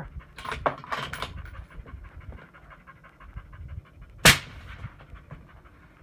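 One suppressed rifle shot about four seconds in, a sharp single crack: a 6.5 Creedmoor fired through a 9-inch Thunder Beast Ultra suppressor, heard at the shooter's ear, where it meters about 127 dB. A few short clicks come near the start.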